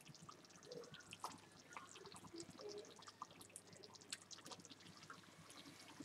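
Thick sloppy joe sauce of ground beef, tomato and green pepper simmering in a pot: faint, irregular little pops and ticks, close to silence.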